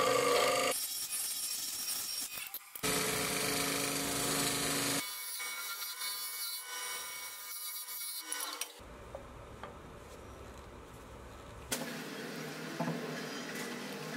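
A hollowing tool cutting the inside of a snakewood vessel spinning on a wood lathe: a harsh scraping rasp of shavings being cut. It comes in short edited clips that switch abruptly every few seconds, and it is quieter near the end.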